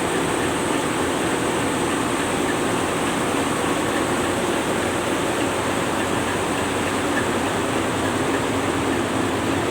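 Steady running noise of a tugboat under way: its main engines and the water rushing past, an even, unbroken rumble.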